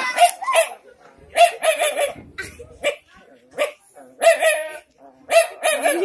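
A man imitating a house dog's warning barks at a stranger with his voice: a series of about a dozen short barks in twos and threes, with a short rising whine near the end.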